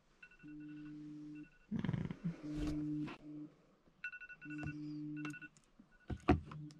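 Electronic alarm sounding in repeated tones about a second long, with short higher beeps alongside, and a few rustles and knocks in between.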